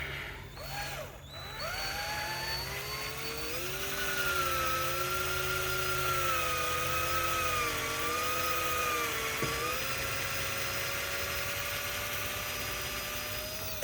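Handheld power drill running for a long stretch. Its motor whine climbs in pitch in the first seconds, then wavers up and down as the trigger is varied. It dips sharply once near the middle, then holds steadier to the end.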